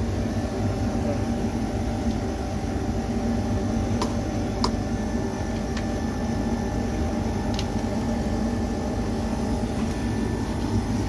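Split air-conditioner outdoor unit running steadily, compressor and condenser fan humming, freshly recharged with refrigerant after its leaking condenser coil was replaced. A few light clicks come through midway.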